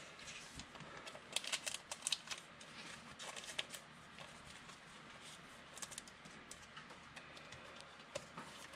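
Trading cards being handled between packs: faint clicks and light rustling. The clicks come thickly for a couple of seconds after the start, then only now and then.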